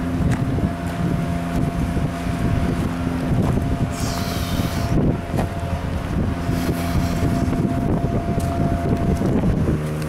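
Strong wind buffeting the microphone, over the steady hum of tree-trimming equipment's engine idling. A brief hiss comes about four seconds in.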